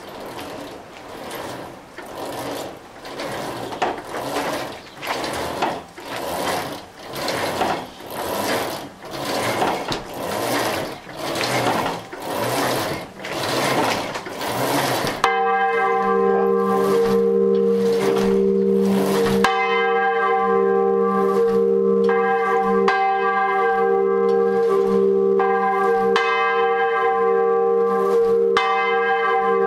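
Large bronze church bell hung 'en rétrograde', being swung up by hand. For the first half there is only a rhythmic swishing with each swing, about once a second and growing louder. About halfway in, the swing is high enough for the clapper to start striking, and the bell rings out in a steady run of strokes.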